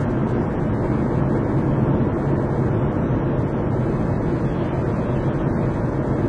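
Steady engine hum and tyre and road noise heard inside a moving Škoda Octavia's cabin, even throughout with no changes.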